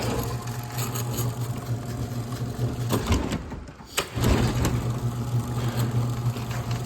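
LiftMaster MJ 5011U commercial door opener motor running with a steady hum. About three seconds in it stops with a clunk, then starts again a second later and runs on, the opener being cycled while its travel limits are set.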